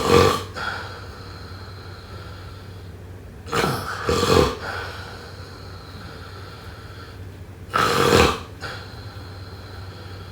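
Snoring: a loud snore dying away at the start, then two more about four seconds apart, each about a second long and followed by a quieter breath out.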